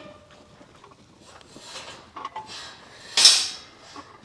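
Two-wheeled oxygen-acetylene cylinder cart rolling over rocky dirt, rattling and rubbing as its wheels catch on the rocks, with a louder brief scrape about three seconds in as it is brought to a stop.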